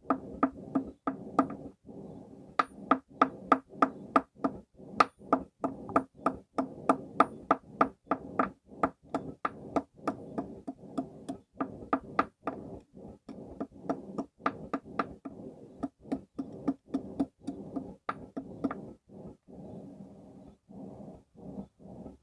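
Hand hammer striking hot steel on a stake anvil: a steady run of ringing blows at about two to three a second, lighter toward the end.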